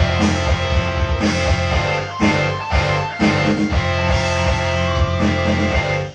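Guitar-led pop-rock music with a steady beat and sustained keyboard chords.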